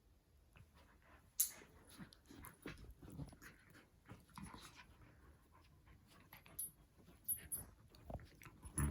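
Two goldendoodles play-wrestling: irregular scuffling and bumps, with a sharp knock about one and a half seconds in and a few more near the end.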